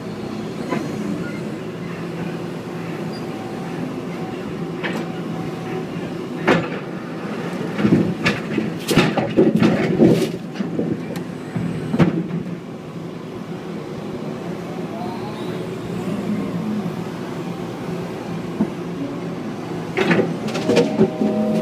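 John Deere excavator's diesel engine running steadily. Sharp knocks and clanks come once about six seconds in, in a dense run from about eight to twelve seconds in, and again near the end, as the bucket and thumb handle railroad ties against the steel gondola car.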